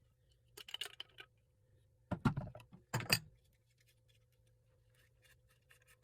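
Faucet bonnet nuts being loosened and taken off, giving a few metallic clinks and scrapes, the loudest about two and three seconds in, then light ticks of parts being handled.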